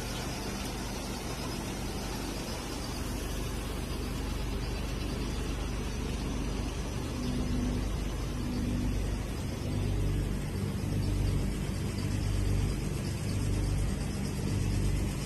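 Scrap LCD panel shredding and crushing machine running, with a steady motor hum and a grinding noise over it. From about halfway through, the low rumble grows heavier and uneven.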